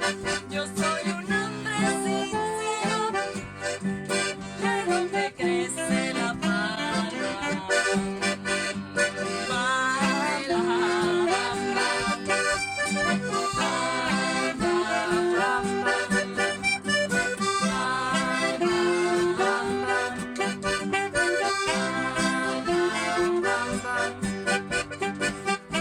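Music: several instruments playing a continuous tune with sustained chords and a moving melody.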